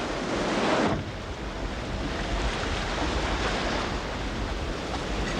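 Stormy sea: waves and wind rushing, with a louder surge of surf in the first second that cuts off abruptly, then a steady rush of wind and water.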